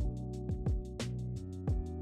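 Background music with a steady beat: held chords over a kick drum and sharp percussive hits.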